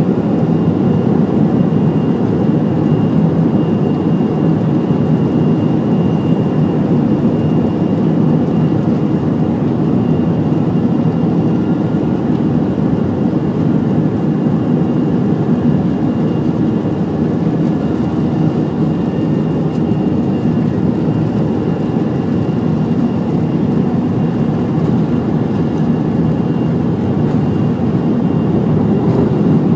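Airbus A321's jet engines at takeoff thrust during the takeoff roll, heard from a cabin window seat: a loud, steady rush and rumble with a faint high whine over it.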